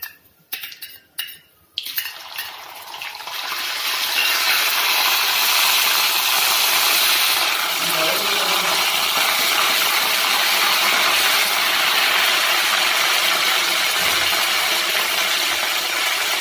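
Ginger-garlic paste frying in hot oil in a kadhai: a few spoon clinks for the first two seconds, then a sizzle that builds and holds steady and loud.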